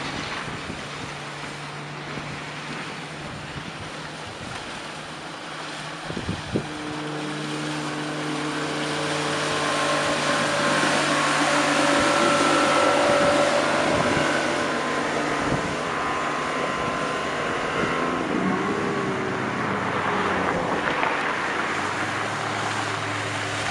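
Outboard motor of a rigid inflatable boat running at speed with a steady drone. It grows louder as the boat passes close about halfway through, then fades as it pulls away.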